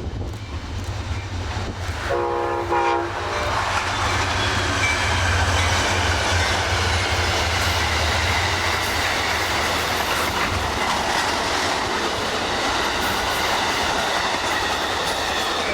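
Amtrak passenger train passing at speed: one short horn blast about two seconds in, then the steady rush and clatter of its wheels on the rails.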